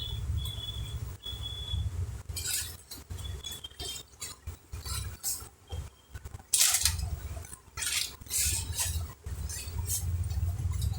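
Clicks and clinks of small tools and laptop parts being handled on a workbench during a motherboard swap, with three short high-pitched tones in the first two seconds.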